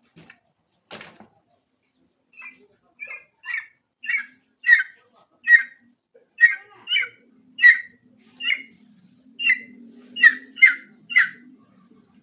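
Junglefowl giving a long series of short, sharp calls, about one and a half a second, starting soft a couple of seconds in and growing louder. A single knock about a second in.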